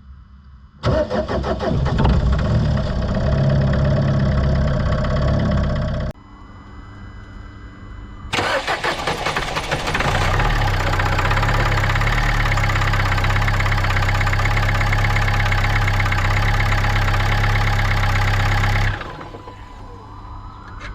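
Car engine starting in the cold, heard twice. About a second in, a start runs for about five seconds and cuts off abruptly. After a quieter gap, the engine starts again and runs steadily until it drops away near the end.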